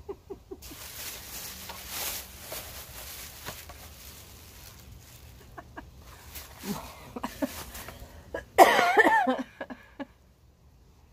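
A woman coughing: quiet stretches, then about eight and a half seconds in, one loud cough fit lasting about a second.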